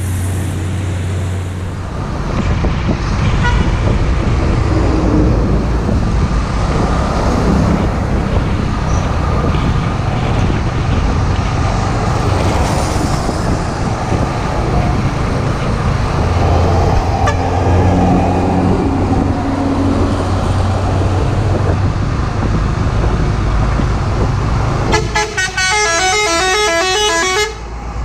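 Road traffic and diesel truck engines running, heard from a moving motorcycle alongside a Hino Ranger truck, with a steady low rumble. Near the end a multi-tone horn warbles rapidly for about two seconds.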